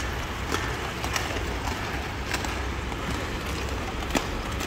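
Quad roller skate wheels rolling on a hard court surface, a steady rolling noise broken by scattered sharp clacks from the skates.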